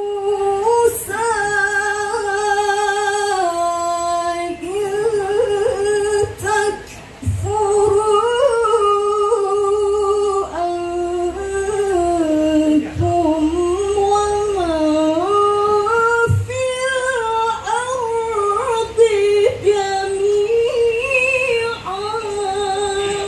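A woman reciting the Quran in melodic, chanted style: long held notes with wavering ornaments, in phrases broken by brief pauses.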